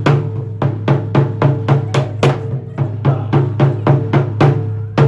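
Taiko barrel drums struck with bachi sticks in a steady rhythm of about four strokes a second, over a steady low hum.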